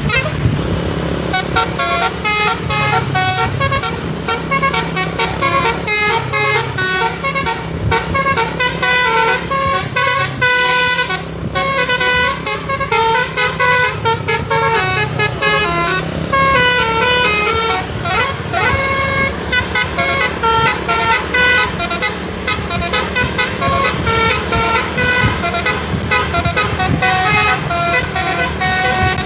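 Tour bus telolet basuri musical air horn playing quick melodies of short stepped notes, one tune after another, with a bus engine running low underneath.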